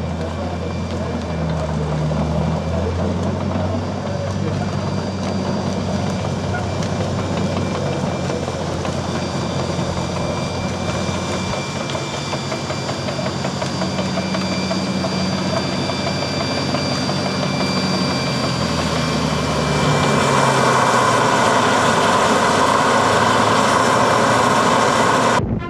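An engine running steadily, its low pitch shifting a few times, over a background of noise; about twenty seconds in the sound grows louder and noisier.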